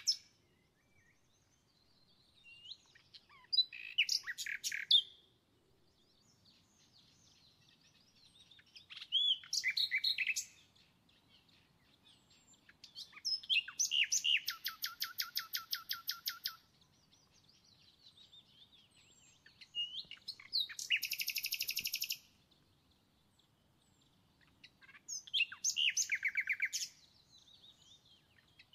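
A songbird singing in short, high-pitched phrases of quick trills and rapidly repeated notes, five phrases in all with pauses of a few seconds between them.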